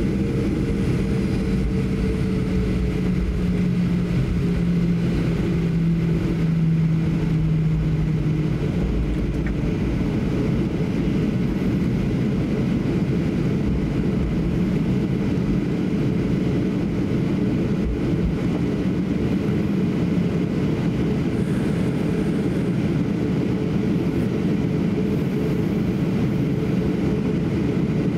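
Steady cabin noise of a Boeing 737-800 taxiing on its CFM56-7B jet engines. A low droning tone sinks slightly in pitch and dies away about eight seconds in, leaving an even rumble.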